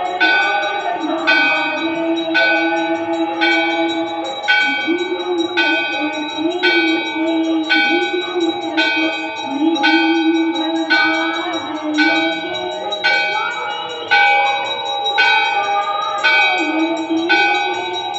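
Temple bell struck about once a second in a steady rhythm during the evening aarti, each strike ringing on into the next, with voices singing underneath.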